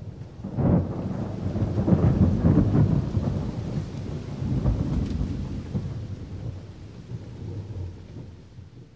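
Rolling thunder rumbling over a hiss like rain. It swells in just after the start and fades away near the end.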